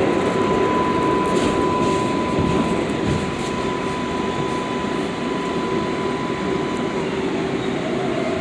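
A 7 train subway car running on the track, with a steady rumble of wheels and rails and a steady high whine that stops about seven seconds in.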